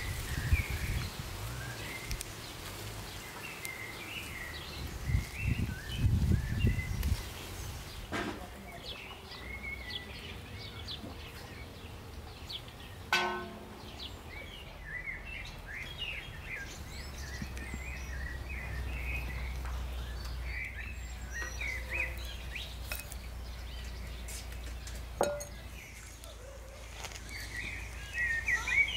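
Small birds chirping and twittering over and over, with a low rumble a few seconds in and a low steady hum in the second half.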